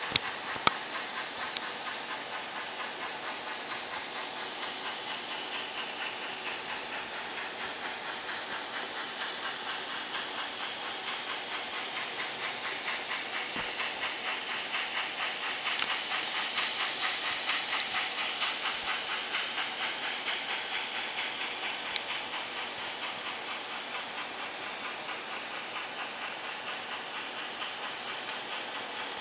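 Loksound DCC sound decoder in an N-scale C&NW 2-8-2 Mikado steam locomotive playing a steady, rhythmic steam chuff through its small onboard speaker as the train runs. The chuffing gets louder in the middle and fades toward the end, with a few sharp clicks along the way.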